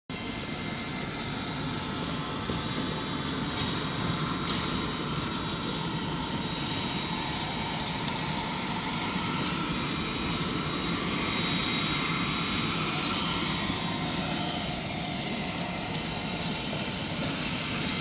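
Robotic floor scrubber-dryer running as it drives across a tiled floor: a steady mechanical drone and whir from its motors, with a faint high whine over it.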